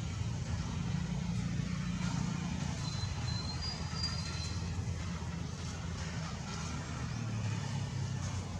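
Steady low engine rumble, with a faint thin high-pitched squeak from about three to four and a half seconds in.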